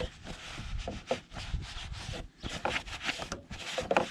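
A battery cable terminal being scrubbed clean: a run of irregular, scratchy rubbing strokes.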